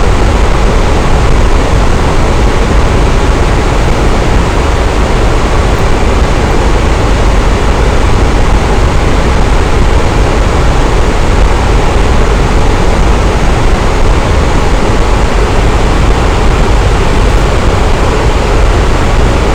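Electric fan running steadily: a constant rush of moving air with a low rumble underneath, unchanging throughout.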